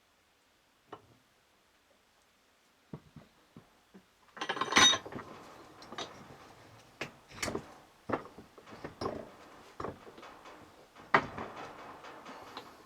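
Steel parts of a universal joint clinking and scraping as they are worked together by hand: a few light clicks, then from about four seconds in a run of louder metal clinks and knocks.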